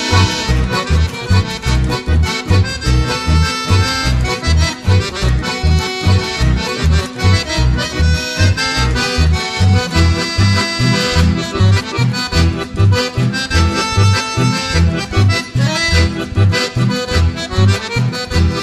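Background music led by an accordion over a steady bass beat.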